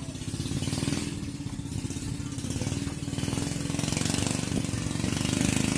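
A small engine running steadily, a low pulsing rumble that grows somewhat louder toward the end.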